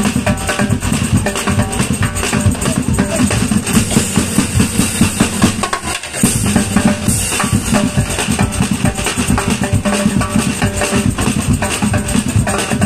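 Street drumbeater band playing a fast, driving beat on snare drums, steel-shelled bass drums and bongos, with a tambourine jingling along. The beat drops briefly about six seconds in and comes back in with a strong hit.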